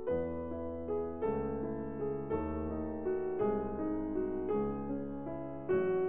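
Slow solo piano music: evenly flowing broken-chord notes over low bass notes that change about once a second.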